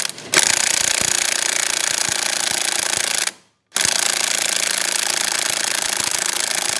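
Impact wrench hammering on the clutch bell nut of a Honda PCX150's belt drive. It runs in two long bursts of about three seconds each, with a short pause about three and a half seconds in. The nut is stubborn and does not want to come off.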